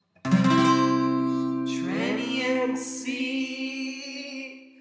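Short outro music sting: a strummed guitar chord comes in suddenly and rings on, slowly fading, with a sung voice sliding in pitch over it near the middle.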